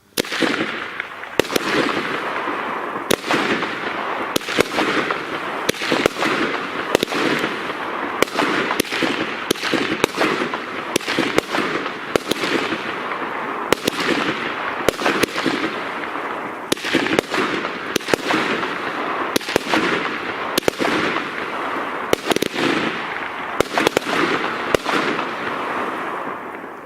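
Weco 'Magnolia' 20-shot 30 mm fireworks battery firing: a rapid string of sharp bangs, about one a second, from the comet launches and star bursts, over a continuous hiss and crackle between the shots. The bangs stop near the end and the hiss fades away.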